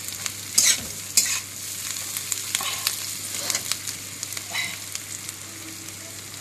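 Sliced carrots, onion and cabbage sizzling in hot oil in a metal kadhai while a metal spatula scrapes and tosses them against the pan. The sharpest scrapes come about half a second and a second in, with lighter ones after.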